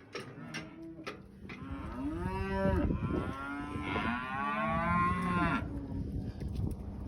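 Cattle mooing: two long moos, one after the other, each rising and then falling in pitch, with a few light knocks just before them.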